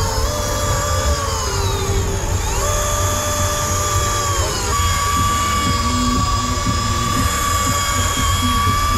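Electric fishing reel's motor winding in line under load: a steady high whine that sags in pitch twice and climbs back, over a steady low rumble.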